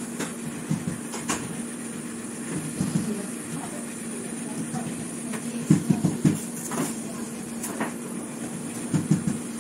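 Hot-air rework gun blowing steadily with a constant hum while it heats a smartphone's back cover to soften the adhesive. Light knocks and taps come from hands handling the phone, in a cluster a little past the middle and again near the end.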